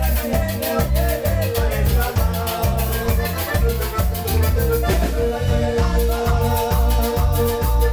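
Live band playing upbeat Latin dance music: drums with a steady beat and cymbal ticks, a strong bass line, and guitars.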